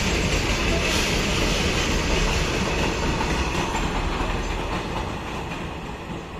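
Goods train rolling past, its wagon wheels clattering on the track. The noise fades steadily as the train moves away.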